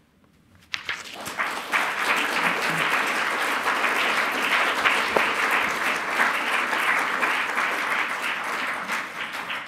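An audience applauding: a dense patter of many hands clapping that starts abruptly about a second in, quickly swells, holds steady, and begins to fade near the end.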